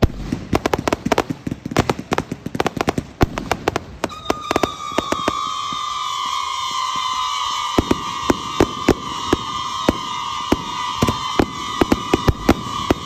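Fireworks going off in a rapid string of sharp pops and bangs. About four seconds in, a steady high whistle joins and holds on under the pops, sliding slowly down in pitch.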